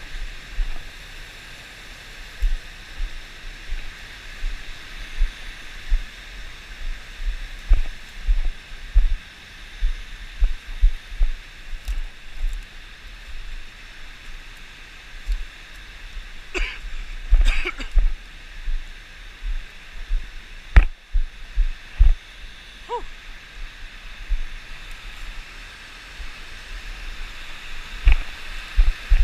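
Steady rushing of a waterfall and its stream. Over it come frequent low, irregular thumps, the loudest sounds here, from the microphone being knocked about while climbing over rocks. A couple of brief faint vocal sounds come about two-thirds of the way through.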